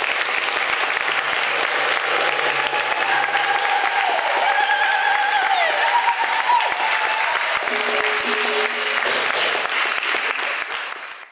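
Audience applauding, with a few held pitched tones over the clapping; the sound fades out near the end.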